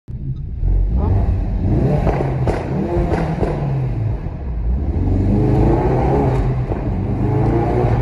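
Ford Focus RS Mk3's 2.3-litre turbocharged four-cylinder engine heard from inside the cabin, accelerating hard with the note rising twice, and a few short sharp cracks between the two pulls.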